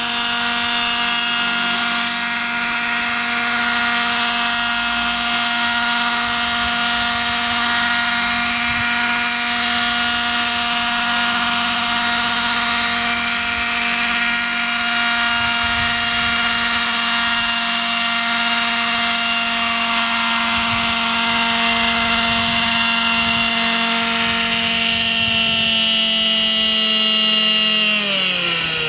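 Radio-controlled model helicopter's small two-stroke glow engine and rotors running at a steady high pitch in hover. Near the end the pitch drops sharply as the engine is throttled back.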